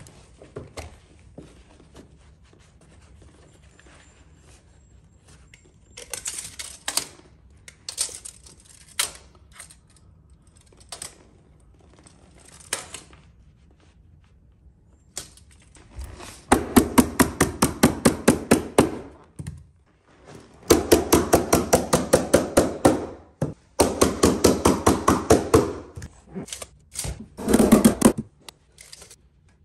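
Stapler driving staples into carpet padding in three quick runs of rapid, evenly spaced strikes, several a second, in the second half. The first half holds only a few scattered handling clicks.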